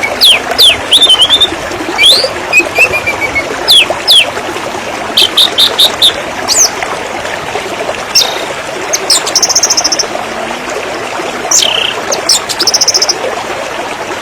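River water flowing steadily, with several birds calling over it: frequent short downward-sliding whistles, runs of quick repeated notes and a couple of brief high trills.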